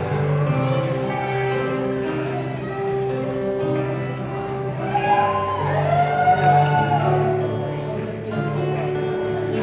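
Amplified acoustic guitar playing a song's opening through a concert PA, with a few whoops from the audience about five to seven seconds in.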